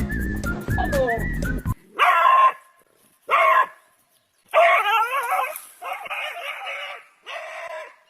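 A dog vocalising in five separate calls with wavering pitch, the third and fourth drawn out longest. Before the first call, music with a whistled tune cuts off suddenly about two seconds in.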